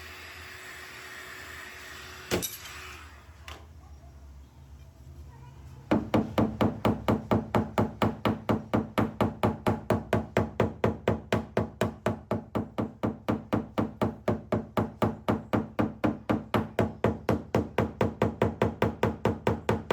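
Rapid, even hammer tapping on a car door's sheet metal, about four taps a second, typical of knocking down high spots in paintless dent repair. It starts about six seconds in. Before it, a steady hiss ends with one sharp click.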